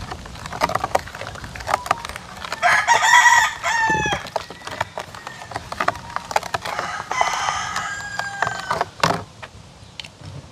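A rooster crowing twice, about three seconds in and again about seven seconds in, each crow a long call that falls away at the end. Under it, light repeated clinks of a metal spoon against a glass mixing bowl as the liquid batter is stirred.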